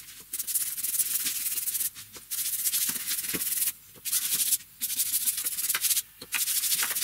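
Paintbrush bristles dragged over bare pine and plywood while a finish from a tin is brushed on, giving a scratchy rustle in runs of a second or so with short pauses between strokes.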